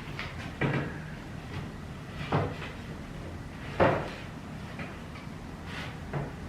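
A plywood seat base knocking against a golf cart seat frame as it is test-fitted: three wooden thumps a second or two apart, the third the loudest, and a lighter knock near the end.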